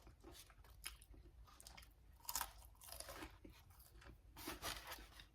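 Faint chewing with irregular soft crunches: a mouthful of fried chicken tenders and fries being eaten close to the microphone.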